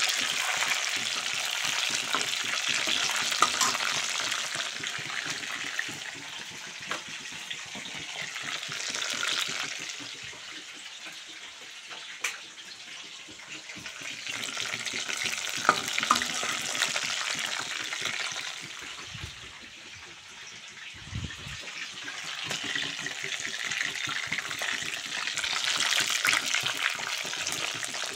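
Chicken rista meatballs deep-frying in hot oil in a kadai: a steady sizzling hiss that dips in the middle and comes back louder near the end, with a few sharp clicks.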